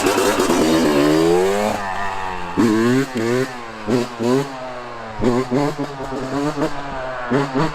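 Yamaha YZ125 single-cylinder two-stroke engine, breathing through a new stock header and silencer, revving. It climbs in pitch in one long pull over the first couple of seconds, then gives a string of about eight short throttle blips that rise and fall.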